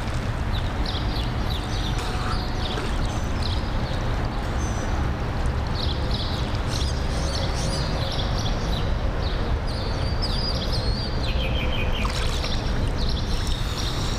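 Swimming-pool water sloshing and lapping right at a microphone set at the water's surface, a steady wash of noise. Birds chirp over it in short, wavering calls throughout.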